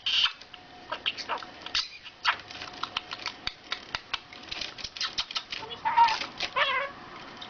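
A pet animal's sounds: a run of light clicks and taps, then a short call that bends in pitch about six seconds in.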